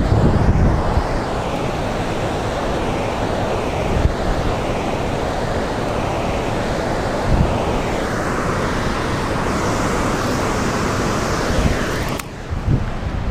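Fast tailwater rushing and churning below a dam spillway, a steady wash of water noise, with wind buffeting the microphone in low gusts. The water hiss thins and drops in level about a second before the end.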